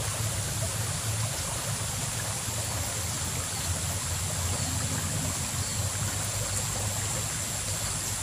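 Steady rushing of water in a small, fast-flowing irrigation ditch, with a low rumble underneath.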